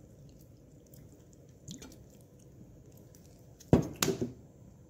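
Vinegar being poured faintly over steamed rice in a stainless steel steamer pan. Near the end come two sharp knocks close together, a hard object set down.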